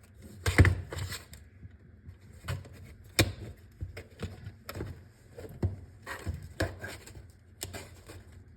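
Stiff plastic blister packaging being cut with a knife and pried apart: irregular crackles, clicks and knocks, the loudest about half a second in and again about three seconds in.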